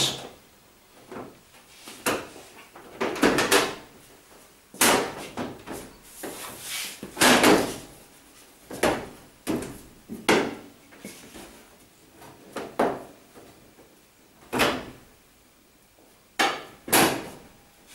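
Tumble dryer's cabinet panel being fitted onto the machine: irregular knocks, clunks and scrapes as it is seated on its bottom location lugs and pressed into place by hand.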